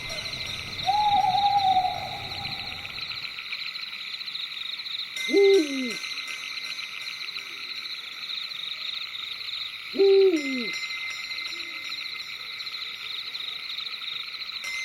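Owl hooting in a night forest soundscape: a held call about a second in, then two short hoots about five seconds apart, the loudest sounds. Under it runs a steady, fast-pulsing chorus of night creatures.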